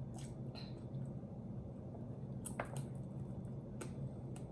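Wet eating sounds from chewing sauce-covered chicken: a few faint, scattered smacks and clicks.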